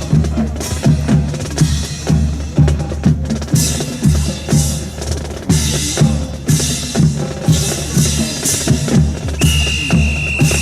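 Drum-led music with a steady, driving bass-drum and snare beat. A high steady tone sounds for about a second near the end.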